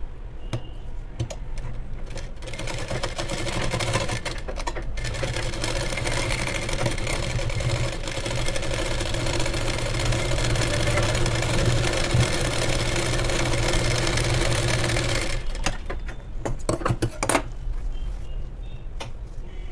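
Sewing machine stitching a seam in a brocade blouse panel, running steadily for about thirteen seconds with a brief stop early on. Before it starts and after it stops there are a few light clicks as the fabric is handled.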